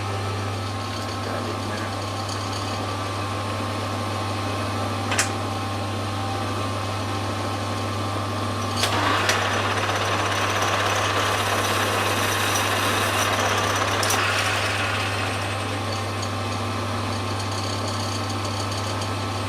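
Metal lathe running with a steady hum. From about nine to fifteen seconds in there is a louder stretch of cutting noise as the tool knocks the sharp edge off the turned mounting plate, with a few sharp clicks along the way.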